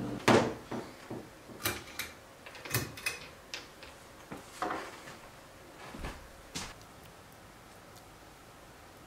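A run of about a dozen short knocks and clunks of things being handled, such as a cabinet's doors and drawers, spread over the first six and a half seconds, then only quiet room tone.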